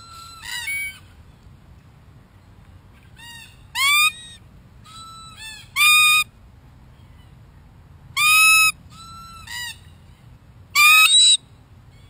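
Red-tailed black cockatoos calling: four loud, harsh calls a couple of seconds apart, each rising then falling in pitch, with softer calls between them.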